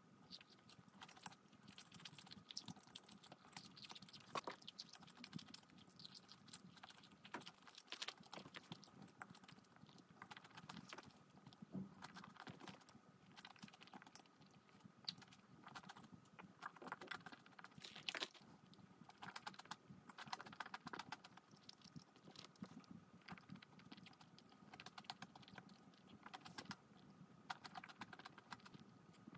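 Faint, irregular clicking and tapping that goes on throughout: the small sounds of eating, with utensils and food being handled and chewed.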